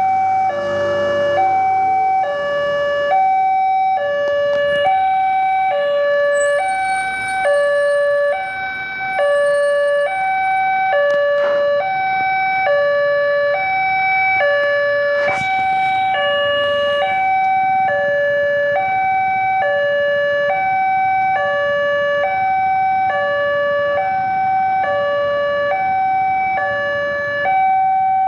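Railway level-crossing warning siren sounding a two-tone hi-lo wail, switching between a higher and a lower pitch about every half second without a break. It is the new siren warning that a train is approaching the crossing.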